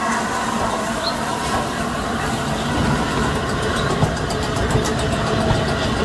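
Train rolling past behind a steam locomotive, its tender and wagon wheels rumbling on the track, with a few evenly spaced clacks from about three seconds in.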